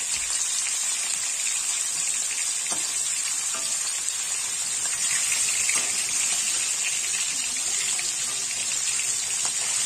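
Fish pieces sizzling steadily in hot oil in a metal kadai as they fry.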